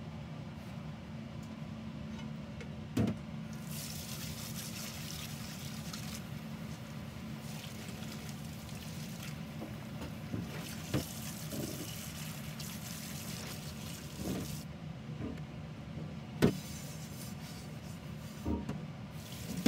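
Kitchen mixer tap running into a sink in several spells, turned on and off. Dishes and utensils clack a few times, and a steady low hum sits underneath.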